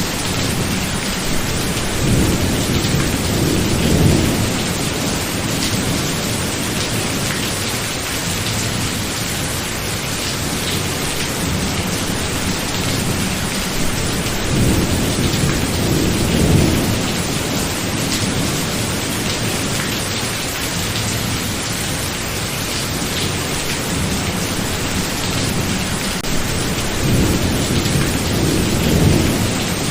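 Thunderstorm: steady rain with three low rolls of thunder that swell and fade, about two to four seconds in, around the middle, and near the end.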